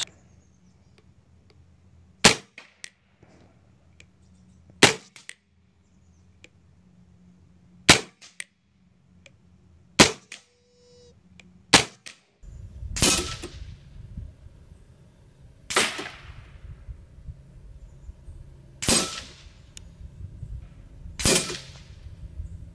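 A regulated .22 FX Monsoon semi-automatic PCP air rifle firing single shots every two to three seconds, nine in all. The last four each carry a ringing tail, as pellets strike the steel knock-down poppers.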